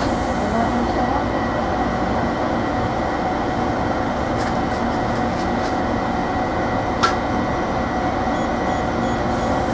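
Interior of a Hiroden 3700-series resistor-control tram standing at a stop: a steady hum and rush from its on-board equipment and air conditioning. A single sharp click about seven seconds in, and faint short high pips repeating near the end.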